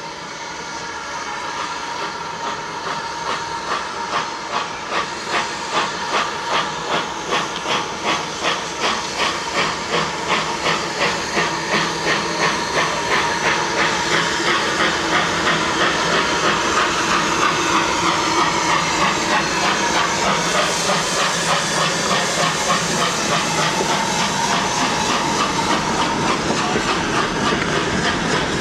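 BR Standard Class 2MT 2-6-0 steam locomotive no. 78019 pulling away with a goods train: its exhaust chuffs, about two a second at first, quicken and merge into a steady rush of steam and hiss as it draws past. Near the end the rattle of passing wagons joins in.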